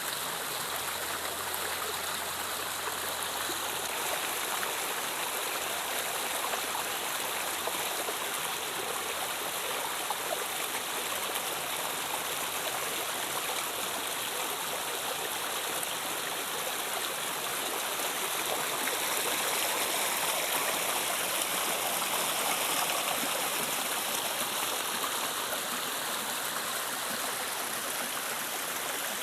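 A river flowing with a steady rushing of water, swelling a little about two-thirds of the way through.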